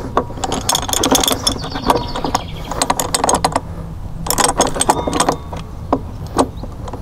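Irregular clicks, clinks and knocks of hard parts as spacers and the trimmer head are slid and fitted onto the drive shaft of a walk-behind string trimmer, with the engine off.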